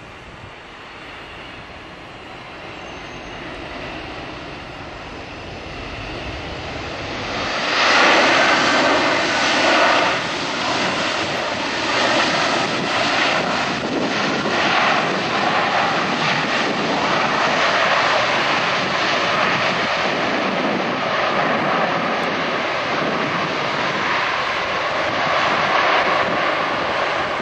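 Boeing 767-300ER jet engines running at high power. The noise builds over the first several seconds, jumps sharply about eight seconds in, then stays loud and steady.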